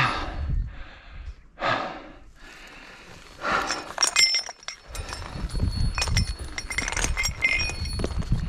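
A climber's hard breathing, three heavy breaths, then the iron chain of a fixed-chain climbing section clinking and rattling in the hands and against rock, with scuffs and knocks of the climb.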